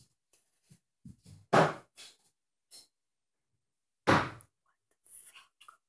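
Two loud thumps, one about a second and a half in and another about four seconds in, with a few faint clicks between them.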